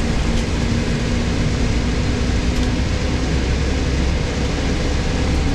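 Steady low rumble of a moving road vehicle heard from inside the cabin, with a faint steady hum over it.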